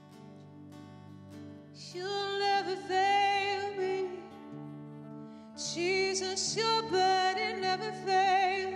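Worship song: a singer's voice in two long phrases over steady held instrumental backing.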